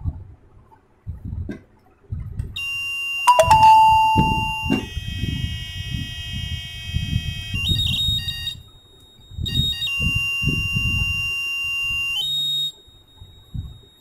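Homemade laser-guided security alarm built from an old optical mouse, its small loudspeaker sounding a high electronic alarm tone as the beam is broken by a hand. The tone switches pitch several times, is loudest for a moment shortly after it starts, breaks off for about a second past the middle, and stops shortly before the end.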